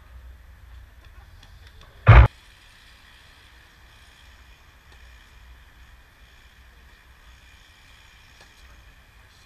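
Outdoor tennis play: faint pops of racket striking ball over a low rumble of wind on the microphone, broken by a single loud thump about two seconds in.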